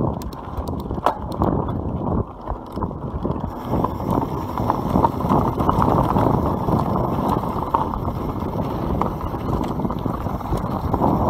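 YT Capra enduro mountain bike riding fast down a loose gravel track: the tyres rolling over stones and the bike rattling with many small knocks over the bumps, with wind noise on the microphone.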